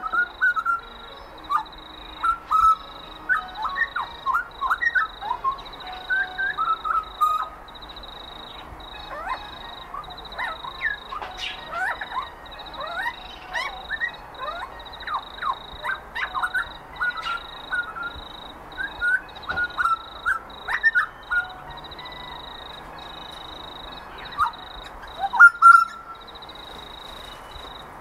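Birds calling outdoors: a busy run of short chirps and whistles that rise and fall, over a steady thin high tone. Near the end come two louder calls.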